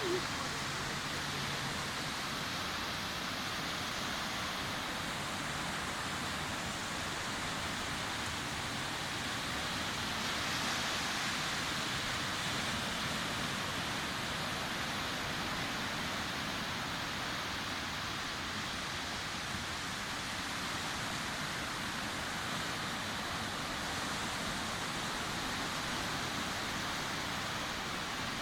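Sea surf washing onto a beach: a steady rushing of breaking waves that swells a little about a third of the way through.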